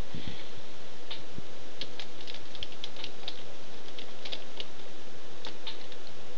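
Small, irregular clicks and ticks in little clusters as a small screwdriver turns silver screws into the plastic screen bezel of an Acer Aspire One netbook, over a steady hiss.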